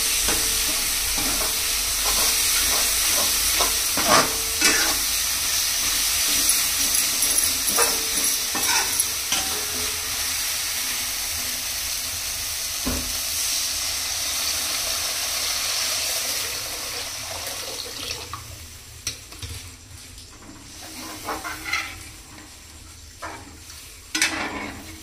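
Food frying in hot oil in a pan, a steady sizzle broken by occasional knocks and scrapes of stirring. The sizzle falls away about two-thirds of the way through, leaving a few scattered knocks.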